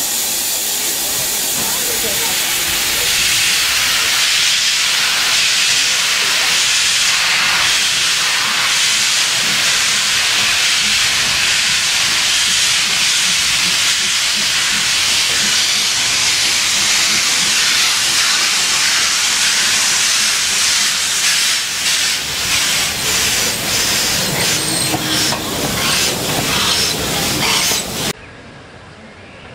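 Steam tank locomotive hissing loudly as it lets off clouds of steam while moving slowly. From about 21 s on, exhaust beats come through at about two a second, and the sound cuts off suddenly shortly before the end.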